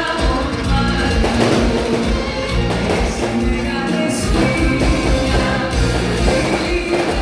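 Live pop-rock music: a singer with a band, including guitar and drums, playing loud and steady.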